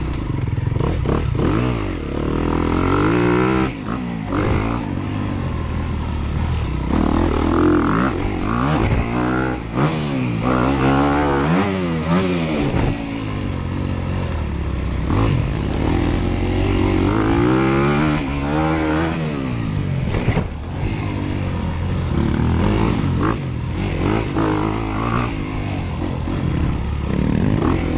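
Dirt bike engines revving on a motocross track, the pitch climbing and dropping again and again as the bikes accelerate, shift and back off, with more than one engine heard at times.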